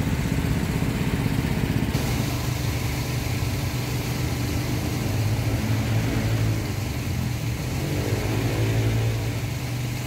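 An engine running steadily at a constant speed, a continuous low hum that grows fuller about two seconds in.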